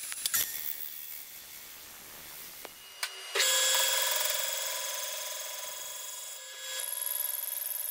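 Portable line boring machine turning its boring bar, the tool bit cutting the steel face of the bore. About three seconds in the cut bites with a sudden loud ringing tone that slowly fades, then picks up again near the end. It is a light clean-up cut over the freshly welded bore edge.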